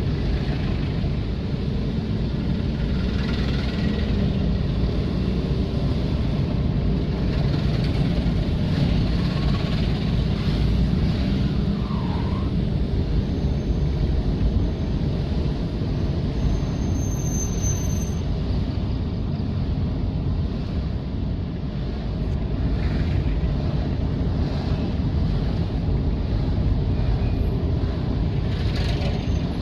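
Road traffic: vehicle engines running in a steady, dense low rumble.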